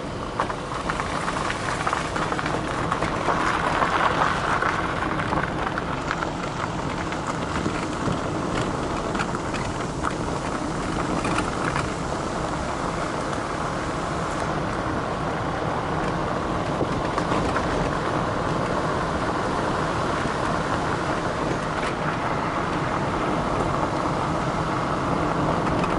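Steady noise of a moving car heard from inside the cabin: engine and tyres on the road, with a few small knocks.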